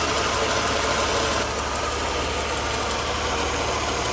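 Mercedes-Benz 300E (W124) engine idling steadily while its fuel mixture, which reads rich on the duty-cycle meter, is being adjusted. The sound drops a little about a second and a half in.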